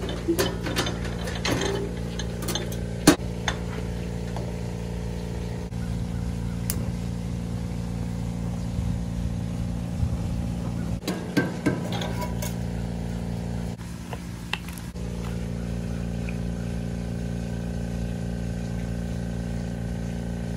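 Metal clicks and knocks from a stainless gas grill's side-burner lid and grate being handled, in clusters near the start and again about two-thirds of the way in, over a steady low hum.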